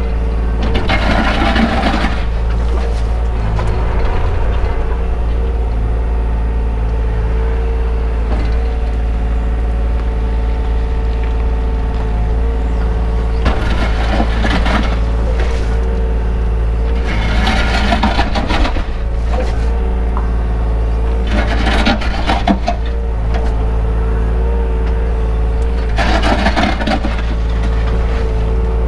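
Takeuchi mini excavator's diesel engine running steadily, heard from inside the cab, with about five bursts of louder hissing and scraping noise, each a second or two long, as the hydraulics work the arm and bucket in mud.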